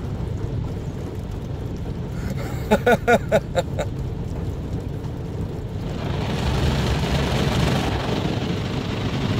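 Automatic car wash heard from inside the car: a steady low rumble of the wash machinery, with a broad hissing wash noise that swells louder about six seconds in as the wash works over the car. A quick run of short high-pitched squeaks comes about three seconds in.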